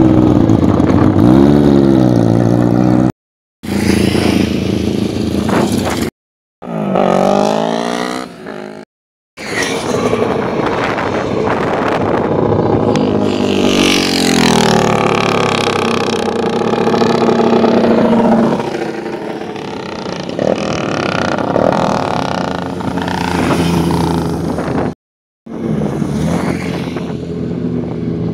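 Racing motorcycle engines running hard at high revs, their pitch rising through the gears and falling as they pass and slow. The sound cuts off abruptly to dead silence four times.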